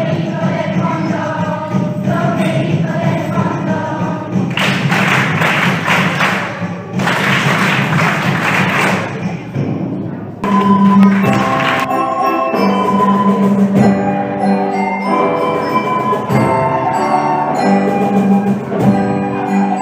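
School concert music: the children's piece ends about four seconds in, followed by about five seconds of applause, then a school instrumental ensemble starts a new piece with bright pitched-percussion notes over a steady low note.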